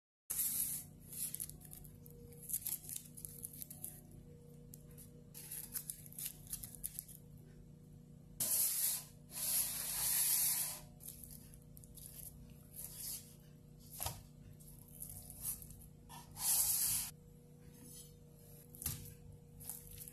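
Short bursts of hissing, rubbing handling noise as a raw beef tongue is moved and handled, the loudest burst about ten seconds in, with a single click near fourteen seconds. A steady low hum runs underneath.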